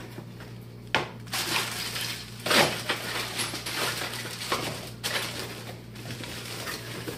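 Cardboard boxes and plastic bags of small metal kit parts being handled: rustling with sharp knocks and clinks, the loudest about one and two and a half seconds in, over a steady low hum.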